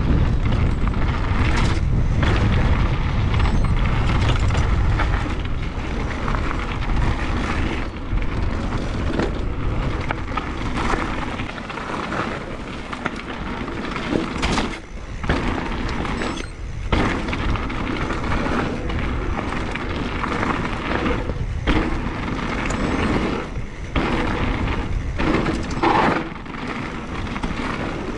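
Wind rumbling on the camera microphone together with the noise of an electric mountain bike ridden over dirt singletrack: tyres on gravel and mud, with knocks and rattles from the bike over bumps. The wind rumble is heaviest for the first several seconds, after which the trail noise and its sharp clatters take over.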